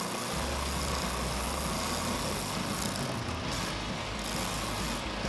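Benchtop oscillating belt sander running steadily while a block of jatoba is pressed against the belt, the motor's hum under a constant abrasive hiss of wood being sanded to shape.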